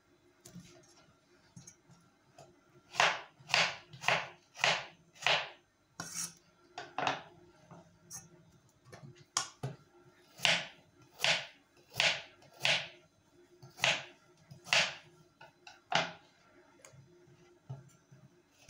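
Kitchen knife cutting raw peeled potatoes on a wooden cutting board: a series of sharp knocks of the blade striking the board, in runs of about one to two a second with short pauses between.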